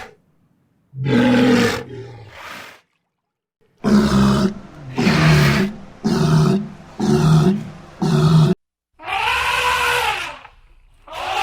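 A wild animal calling in loud, roaring calls: one call about a second in, then a run of five short calls about a second apart, then a longer call that rises and falls in pitch.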